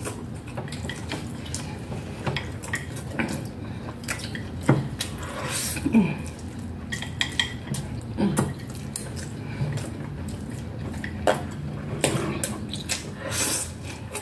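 Eating at the table: chopsticks clicking and scraping against plastic plates many times over, with chewing, and a few brief falling-pitch sounds from the eaters.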